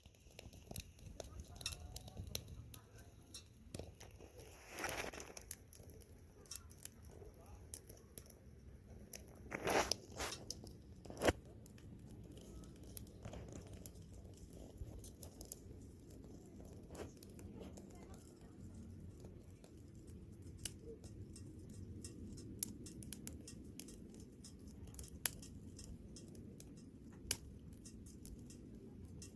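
Campfire burning: wood crackling with frequent sharp pops over a low steady rumble, with a few louder pops and hisses about five and ten seconds in.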